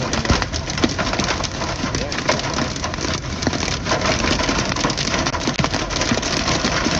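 Large hail pelting a moving vehicle's roof and windshield: a dense, irregular rattle of sharp cracks and knocks over a steady rushing noise.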